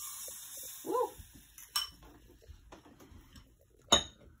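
Banana pancake batter sizzling as it is spooned into a hot buttered frying pan, the sizzle strongest for the first couple of seconds, then fading. A metal spoon clinks on the bowl and pan, with a sharp clink near the end as the loudest sound, and a brief rising-and-falling whine about a second in.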